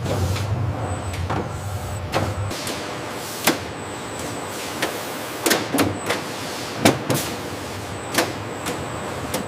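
Machinery noise: a steady hum that drops away about two and a half seconds in, with a dozen or so irregular sharp clicks and clacks.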